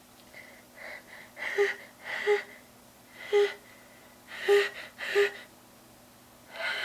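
A woman's short, catching gasps, about six of them a second or less apart, with a faint voiced 'ah' in each: the breath-catching build-up of a coming sneeze.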